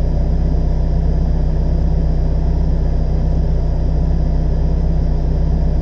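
Car engine idling steadily, heard from inside the stationary car's cabin as an even low hum.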